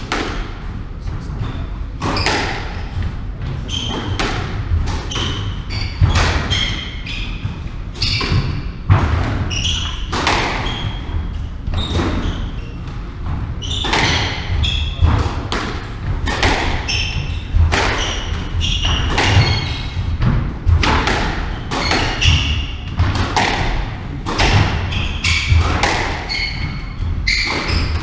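A squash rally: the ball is struck by rackets and cracks off the walls in sharp knocks every second or so, with short high squeaks of players' shoes on the wooden court floor.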